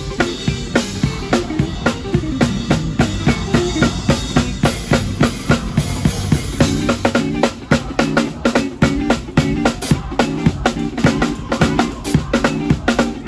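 Drum kit played hard in a fast gospel groove, with snare and bass drum hits packed closely together and growing busier about halfway through, over held chords from the band.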